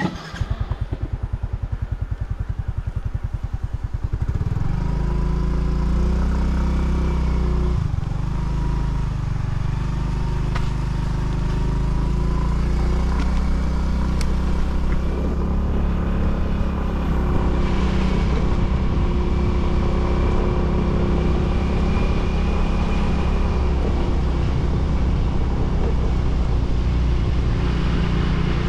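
Motorcycle engine running on the road. For about the first four seconds there is a rapid, even low pulsing, then a steady low drone.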